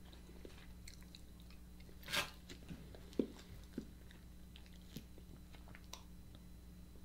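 Close-up mouth sounds of biting and chewing roasted alligator meat off the bone: scattered wet clicks and smacks, the loudest a sharp bite about two seconds in and another about a second later.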